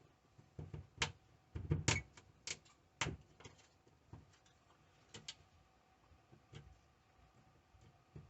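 Irregular sharp clicks and light knocks from the Chromebook's plastic case being handled during disassembly, bunched together in the first few seconds and then sparse.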